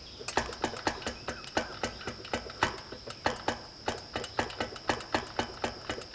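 Yamaha RD400 two-stroke engine being turned over slowly by hand on the kickstarter: a rapid run of light mechanical clicks, about four a second, as the piston is brought up toward the firing point. A faint steady high whine sits underneath.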